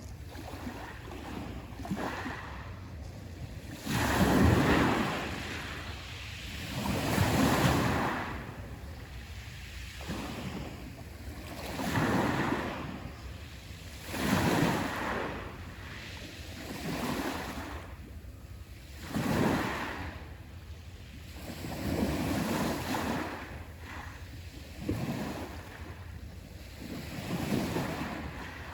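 Black Sea waves breaking on the shore one after another, a surge of surf every two to three seconds that swells and fades, over a steady low rumble.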